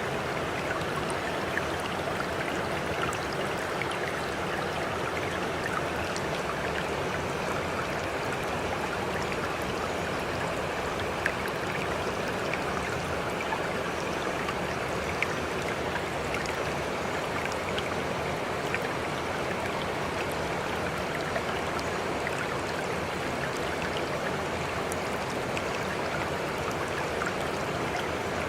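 Steady rush of flowing water, even and unchanging, with scattered faint ticks of droplets throughout.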